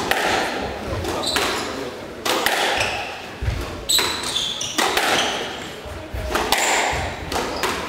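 Squash rally: the ball cracks sharply off racquets and court walls about once a second, echoing in the enclosed court, with short high squeaks from players' shoes on the wooden floor.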